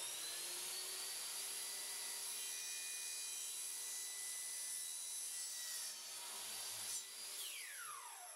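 Hitachi miter saw running as its blade cuts through white PVC pipe. About seven seconds in it is switched off, and the motor whine falls in pitch as the blade spins down.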